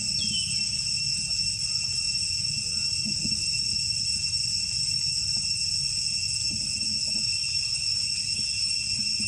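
Steady, unbroken high-pitched insect chorus over a low rumble, with one short falling chirp just after the start.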